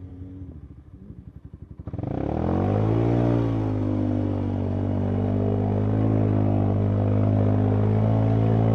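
Polaris ATV engine running low and uneven, then opened up about two seconds in: the revs climb and hold steady under load as the quad pushes through water, with splashing noise over the engine.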